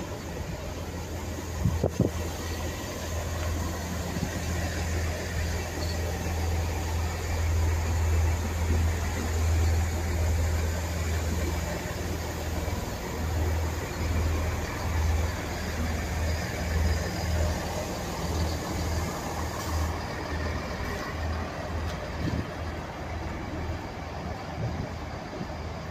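Diesel multiple unit moving slowly along the platform, its underfloor diesel engine giving a steady low hum that turns uneven and fluttering in the second half. A single sharp clack sounds about two seconds in.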